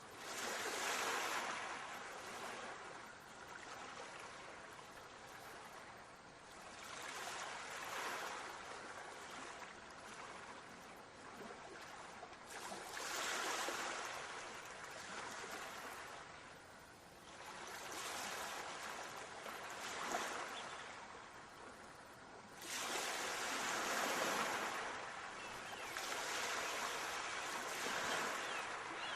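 Sea waves breaking and washing up a sandy shore, a hiss of surf that swells and fades about every five seconds, six waves in all.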